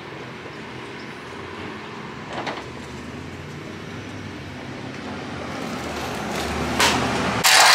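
Steady rumbling noise that slowly grows louder, with a single click about two and a half seconds in; near the end a cordless drill starts up loud and fast.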